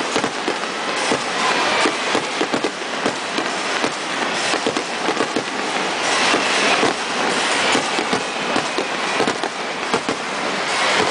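Aerial fireworks display: shells bursting in quick succession, a dense, continuous run of sharp bangs and crackling, heard thin with little deep boom.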